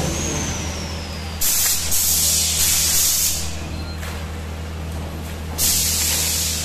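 Pneumatic nursery-tray forming machine cycling: two bursts of compressed-air hiss, the first about two seconds long and the second about a second, over a steady low machine hum. A faint high tone falls slowly during the first second or so.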